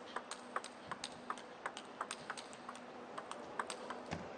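Table tennis ball in a fast rally: a quick, even run of sharp clicks, about three a second, as the celluloid ball strikes the players' rubber-faced bats and bounces on the table.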